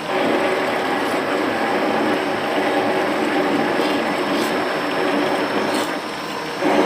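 Metal-cutting circular saw machine running steadily: a continuous mechanical whir with a low steady hum, dipping briefly near the end.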